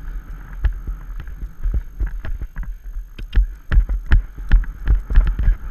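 Hoofbeats of a horse moving at speed over a sandy cross-country track, a quick uneven run of thuds, with wind rumbling on the microphone.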